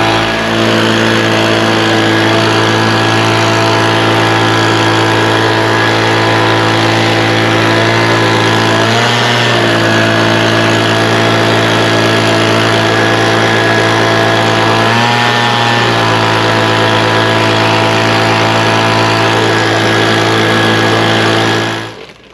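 Tractor engine running at a steady speed. It dips briefly twice, about nine and fifteen seconds in, then cuts off suddenly near the end.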